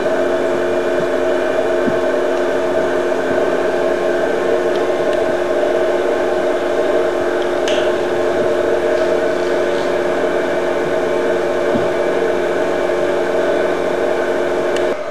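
Laboratory test apparatus running with a steady motor hum made of several held tones over a whirring noise, with a faint click about eight seconds in.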